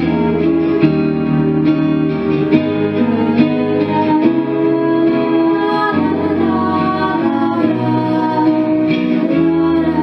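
Two girls' voices singing a duet through microphones over a recorded accompaniment with plucked guitar. One voice leads at first, and both are singing by about six seconds in.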